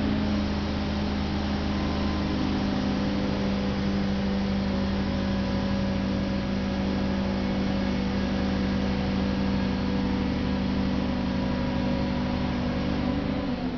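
A large engine running steadily at raised revs, its pitch falling away as it drops back near the end.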